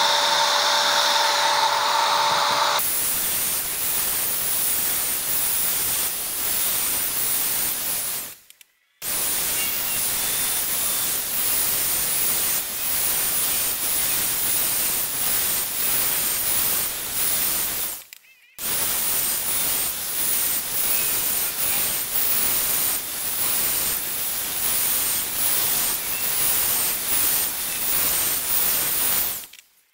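Electric angle grinder sharpening the cutters of a chainsaw chain: a steady motor whine for the first few seconds, then a steady hissing grind of the disc on steel. The grinding is broken by a few brief silences.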